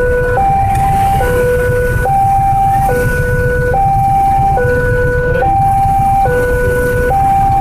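Railway level-crossing warning alarm sounding a two-tone hi-lo signal, switching between a low and a higher tone a little less than once a second, over the low rumble of motorcycle engines and traffic. The alarm signals that a train is coming and the crossing barrier is down.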